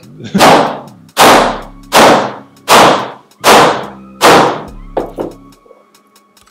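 Hammer blows against a tiled kitchen backsplash as the tile is broken out: six heavy strikes about three-quarters of a second apart, then two lighter knocks about five seconds in.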